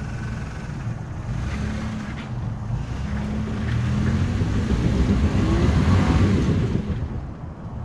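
Off-road truck engine pulling through snow, building louder toward the middle and easing off near the end, with a rough rush of tyre and wind noise over it.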